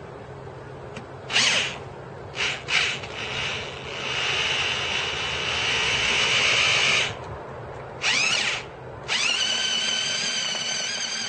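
Electric drill mixing mortar in a bucket. It gives a few short trigger bursts, then runs for several seconds. Near the end it spins up twice with a rising whine, and the second time it settles into a steady whine.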